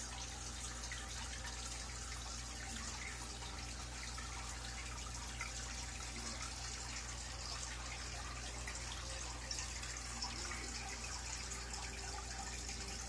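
Aquarium water circulating: a steady trickle and splash of water, as from the tank's filter, over a constant low hum.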